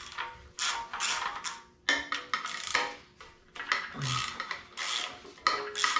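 Socket ratchet being cranked in several short bursts, undoing the fasteners of the windage tray on a small-block Chevy V8, with clinks of metal on metal.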